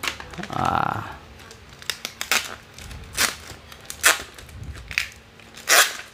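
Plastic packaging bags crinkling and rustling as they are handled and cut open with scissors, in about six short, sharp bursts.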